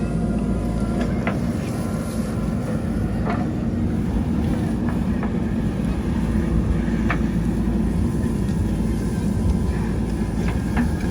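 JCB 3DX Super backhoe loader's diesel engine running steadily under load, with a few brief sharp clinks from the working machine, about four in all.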